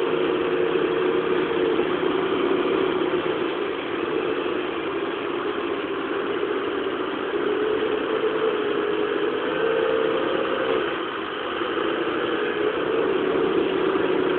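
Excavator engine running steadily while its bucket pushes soil into a grave. The engine note wavers up and down a little as the arm works, with a short dip about eleven seconds in.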